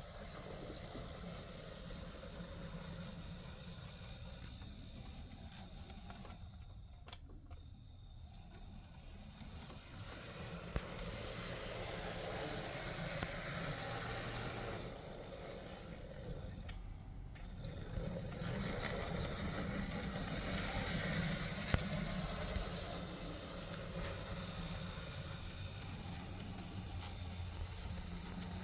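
Z scale model locomotive (AZL CSX SD40-2) running on track: its small electric motor and wheels make a steady whirring rattle that grows louder and fades as it passes, with a few sharp clicks.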